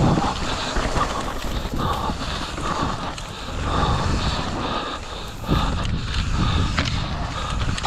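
Mountain bike ridden over a rough trail: wind buffeting the microphone over a steady rumble from the tyres, with irregular rattles and knocks and one sharper knock near the end.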